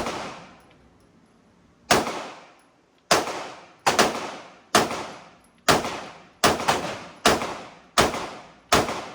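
A semi-automatic pistol firing a string of about ten shots at a steady pace, roughly one shot a second or a little faster, each with a short ringing decay.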